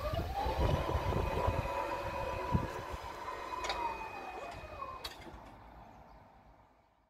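Electric drive of a railway level-crossing barrier raising its boom. A motor whine rises in pitch as it starts, runs steady for about three seconds, then winds down, with two sharp clicks as the whine ends.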